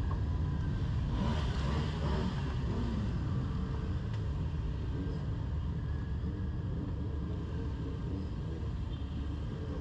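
BMW G310GS single-cylinder motorcycle engine idling: a steady low rumble.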